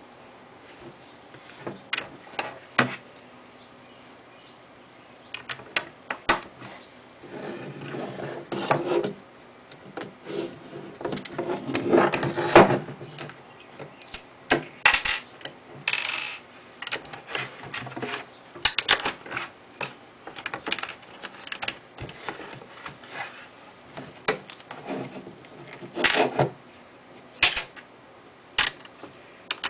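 Plastic LEGO bricks being handled and pressed together: a scatter of sharp clicks and clatter, with a busier stretch of rattling partway through.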